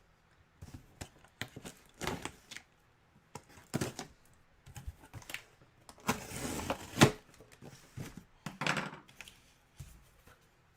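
A mystery jersey box being handled and opened: irregular knocks, clicks and rustling of box and packaging, with a longer scraping rustle about six seconds in that ends in a sharp click.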